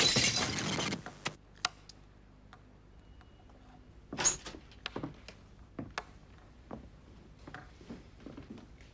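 A mirror shattering, its crash of breaking glass dying away in the first second. Then a car key is set down and handled on a wooden table, with a few sharp clicks and taps, the loudest about four seconds in.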